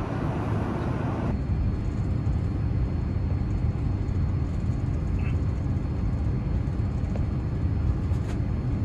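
Steady low rumble of airflow and engines inside a Boeing 787-9 airliner cabin during the descent, its upper hiss thinning a little about a second in.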